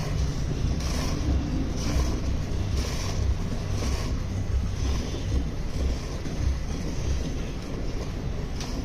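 Hand-milking of a buffalo: milk jets hissing into a pail about once a second, fading later on, over a steady rumble of wind on the microphone.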